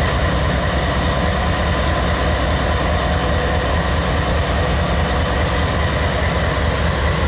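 GE diesel-electric freight locomotive running steadily as it creeps past at low speed: a deep engine rumble with a steady whine over it.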